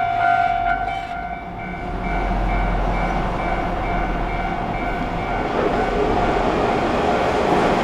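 Japanese level-crossing warning bells ringing about twice a second, with a held high tone that drops away about a second in, as an electric train draws near; the train's running noise swells toward the end and covers the bells.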